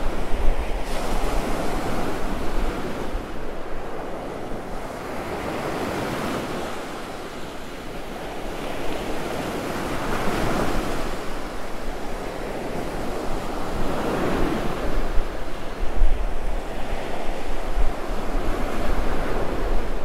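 Ocean surf breaking and washing up a sandy beach, swelling and easing every few seconds, with wind rumbling on the microphone.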